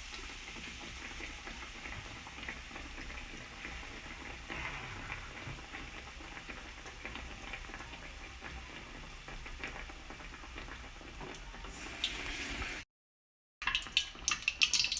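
Batter-coated bread slices deep-frying in hot oil: a steady sizzling and bubbling with fine crackles. Near the end the sound drops out completely for under a second, then comes back with louder crackling.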